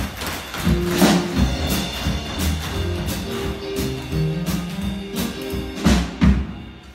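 Live band with drum kit playing the closing bars of a tap-dance number, with tap shoes clicking on the stage. It ends in two loud closing hits near the end.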